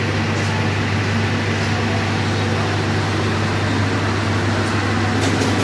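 Steady mechanical hum with a constant low drone and an even noise over it, from a running engine or machine.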